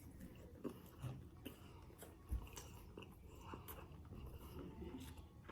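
Faint chewing and mouth sounds of someone eating, with a few soft, scattered clicks and smacks.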